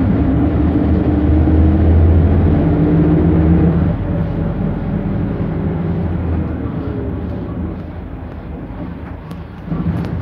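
The 1998 Autosan H6 midibus's Perkins Phaser 110Ti four-cylinder turbo-diesel, heard from inside the cabin, pulls steadily for about four seconds. It then eases off and runs quieter, and picks up again near the end.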